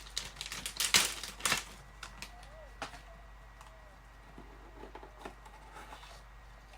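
Hands opening a small jewellery gift box: a cluster of clicks and rustles of the box and its wrapping in the first couple of seconds, then quieter handling with a few faint ticks.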